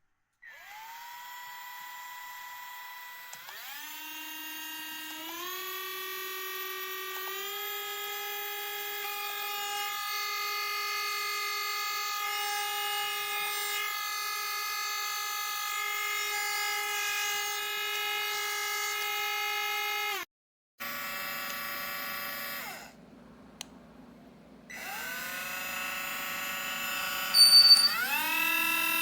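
DuroFort 8V cordless rotary tool's motor running with a high whine, stepped up through its speed settings: the pitch jumps up three or four times over the first eight seconds, then holds at top speed. It stops about two-thirds of the way through, then starts again and steps up through the speeds, with two loud bursts near the end.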